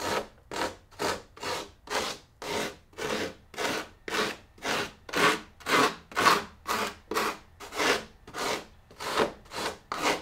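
Hand tool scraping back and forth over carved styrofoam as the torso of a sculpture is shaped. It makes even, scratchy strokes at about two a second.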